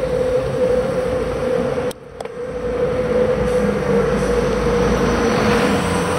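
Wind and road rumble on a bicycle-mounted action camera while riding, over a steady hum, with a brief dip about two seconds in. Near the end a bus pulls alongside, and its engine rumble builds.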